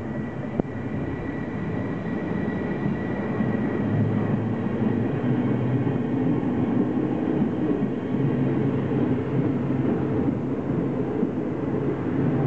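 NS Koploper electric intercity train pulling out and running past the platform: the hum of its traction motors and the rumble of wheels on the rails grow louder over the first few seconds and then hold steady. A thin high whine fades out early.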